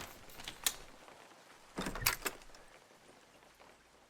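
Door lock and latch clicking: a couple of sharp clicks about half a second in, then a quick cluster of louder clicks around two seconds in, as a front door is unlocked and opened.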